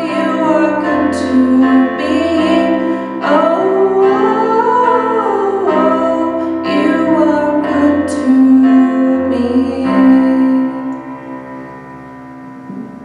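A woman sings to her own accompaniment on a Yamaha Clavinova digital piano. About ten seconds in, the song ends and the last chord dies away.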